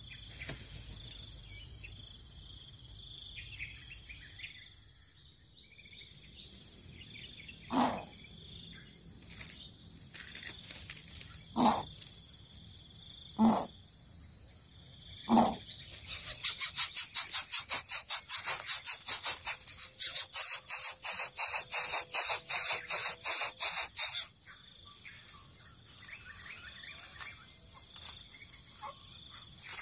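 Crickets trilling steadily throughout, with four short low calls in the first half, then a rapid run of harsh rasping pulses, about four a second, lasting some eight seconds and louder than everything else.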